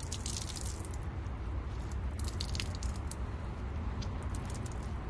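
Water wrung out of a soaked microfiber towel splashing and spattering onto a concrete walk, in a strong spell at the start and another about two seconds in, over a low steady hum.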